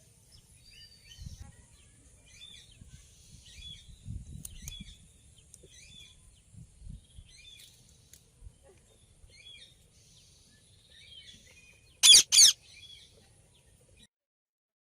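Rose-ringed parakeet giving many short, faint high chirps, then two loud high calls in quick succession about twelve seconds in.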